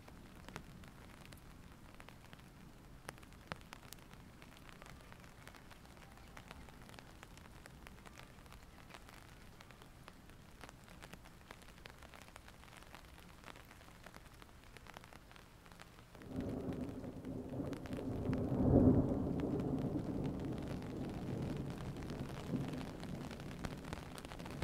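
Light rain with drops ticking on a surface. About two-thirds of the way through, a low rumble of thunder starts suddenly, swells for a couple of seconds and then rolls away slowly.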